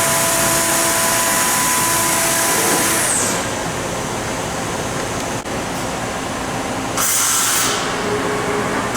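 Fanuc Robodrill D21 CNC drill and tap center running a program: a loud, steady hiss with steady spindle tones for about three seconds, which then drops away with a falling whine. Short bursts of high hiss follow about seven seconds in and again near the end.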